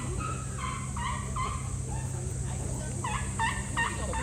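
A run of short, pitched animal calls repeated several times a second, then a pause and four more calls near the end.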